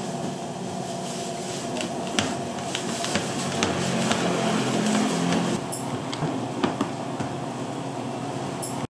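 Food-stall kitchen ambience: a steady hiss and hum with scattered sharp clinks and knocks, like utensils on cookware.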